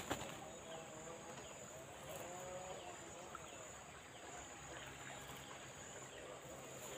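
Faint outdoor ambience: a steady high-pitched insect drone, with a short knock at the very start.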